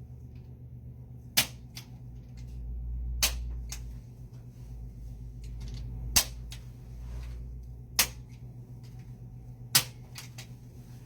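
Activator adjusting instrument, the hand-held spring-loaded chiropractic tool, firing five sharp clicks a couple of seconds apart as it delivers adjustment thrusts. Fainter ticks come between the main clicks.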